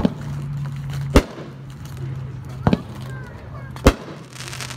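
A 12-shot consumer firework cake firing: four sharp reports at roughly one-second intervals, the third one doubled, then a short spell of fine crackling near the end, over a steady low hum.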